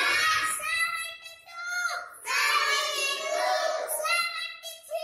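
A young boy counting aloud in a high, sing-song chant, in about three phrases with short breaks between them.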